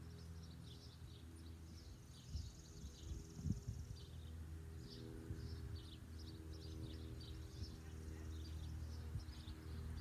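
Birds chirping over and over, with a high insect-like buzzing trill for about two seconds a couple of seconds in. Underneath is a steady low hum, and a couple of soft low thumps come around three seconds in.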